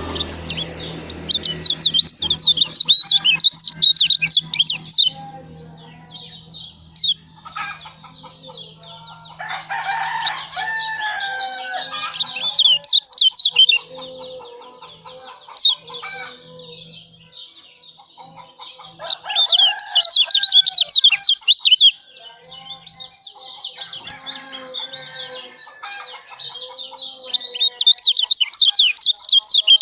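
Kecial lombok white-eyes singing: repeated bursts of fast, high twittering trills that stop and start every few seconds, with lower chirps and calls from other birds in between.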